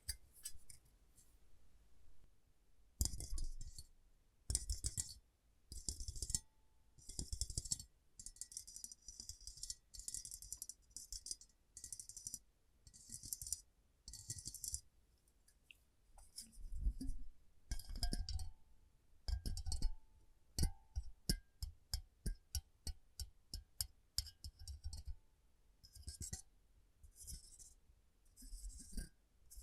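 Silver metal clips being handled, pressed and released: short bursts of scratchy metal rubbing and clinking, then in the second half a quick run of sharp clicks, about two to three a second.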